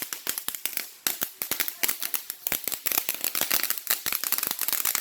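Crackling firework going off: a dense, irregular string of sharp snaps and pops, several every second.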